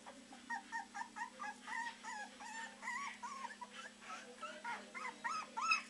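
Three-week-old Beagle puppies baying in a quick run of short, high-pitched calls, several a second, with louder rising calls near the end: the puppies are already practising the breed's howl.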